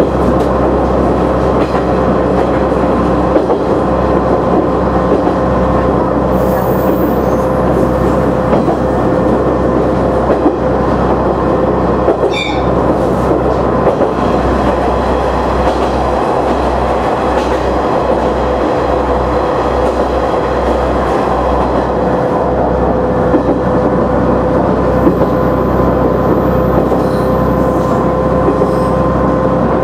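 KiHa 100 diesel railcar running along the line, heard from inside the car. A steady engine drone with a constant whine mixes with wheel-and-rail noise, broken by occasional clicks from the track.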